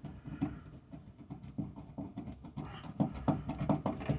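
Irregular small clicks and scrapes of the silver terminal screw on an electrical outlet receptacle being tightened down onto the white wire, with a few sharper ticks near the end.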